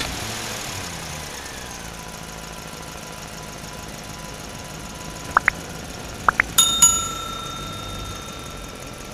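Like-and-subscribe animation sounds: four short click-chirps in two quick pairs about halfway through, then a bell ding that keeps ringing for a couple of seconds. Underneath, a steady engine sound runs low.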